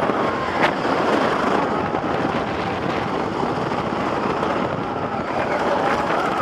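GhostRider wooden roller coaster train running along its track: a steady clattering rumble mixed with wind on the microphone, with a sharp knock about half a second in.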